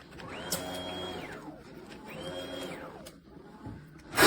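Brushless electric motor of an RC speedboat revved twice, each a whine that rises, holds briefly and falls away.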